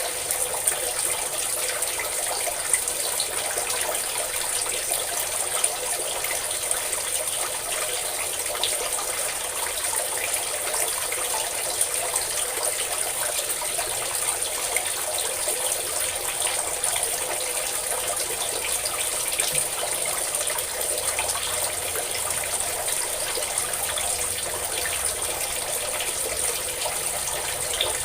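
A stream of water pouring and splashing steadily, with no breaks or changes.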